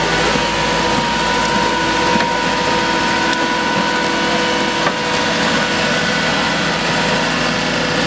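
Engine running steadily at an even pitch, with a couple of faint clicks.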